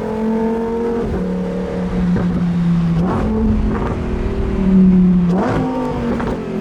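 Lamborghini Huracan Performante Spyder's 5.2-litre V10 running under way. Its pitch holds steady and then jumps in steps as it shifts gears, with a quick rising rev a little after five seconds. Sharp cracks sound around the shifts, about three and five and a half seconds in.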